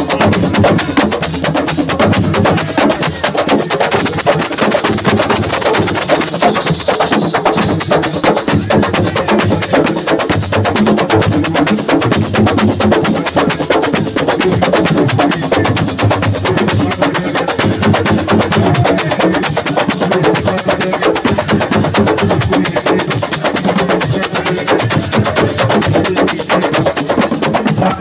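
Live Senegalese assiko band playing fast, dense drum and percussion music without a break.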